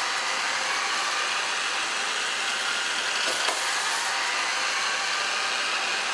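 A steady, even whirring hiss with faint high tones running through it, unchanging throughout.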